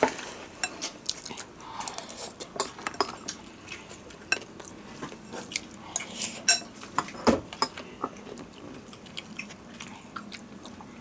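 Metal spoon clinking and scraping against a glass bowl while scooping fried rice. The taps are irregular, with one louder knock about seven seconds in.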